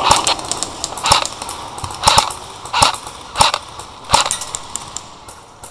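Airsoft guns firing single shots: about six sharp cracks roughly a second apart, with a few fainter clicks between them.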